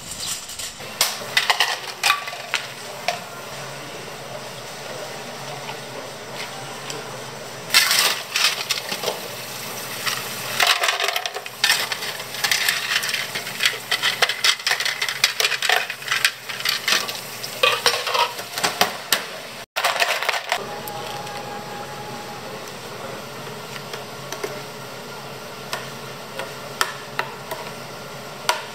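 Ice cubes clattering and clinking into a plastic blender jug, amid knocks and clinks of cafe utensils.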